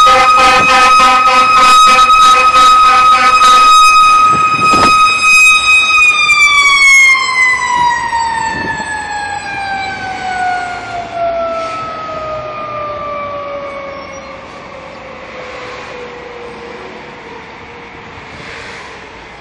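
Fire engine siren holding a loud, steady high wail, with a rapid pulsing sound under it for the first few seconds. About six seconds in, the siren starts to fall slowly in pitch and fades as it winds down.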